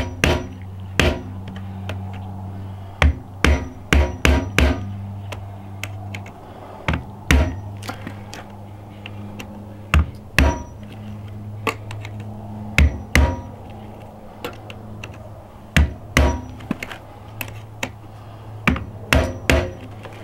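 Claw hammer tapping the handle of a Phillips screwdriver to punch pilot holes in the metal edge of a dog-house lid: sharp taps, some single and some in quick runs of several, with pauses between.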